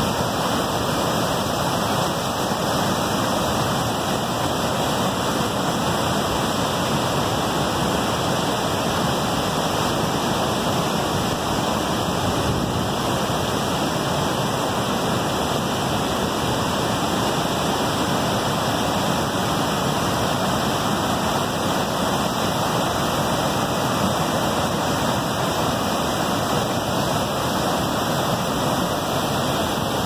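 Waterfall pouring over rock ledges into a whitewater stream: a steady rush of falling water.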